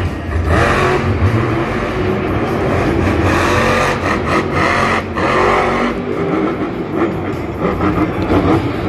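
Monster truck's supercharged V8 engine revving hard, its pitch climbing and falling several times.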